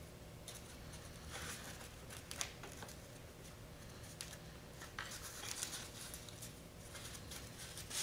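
Faint rustling and scraping of hands working a foam mold, pressing short popsicle-stick pieces onto it with hot glue, with a few small sharp ticks of wood against foam.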